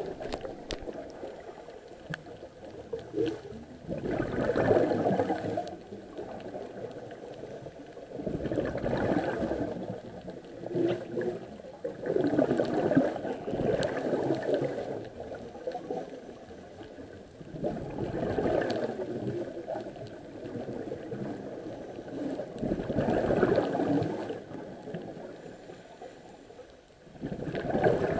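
Scuba diver's regulator underwater: a gurgle of exhaled bubbles about every four to five seconds, about seven breaths, over a steady water hiss.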